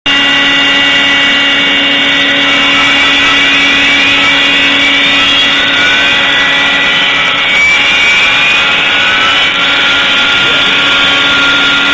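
CNC router spindle running with a steady whine as its end mill cuts a pocket into a sheet, with short rising tones coming and going over it as the machine moves.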